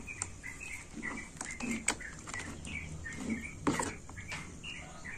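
Small birds chirping in short, repeated calls, with a few sharp clicks and a faint low hum underneath.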